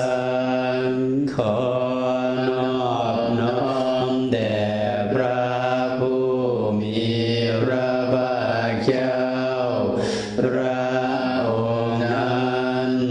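Buddhist chanting in a low male voice, held at a near-monotone pitch with syllables running on steadily and no pauses.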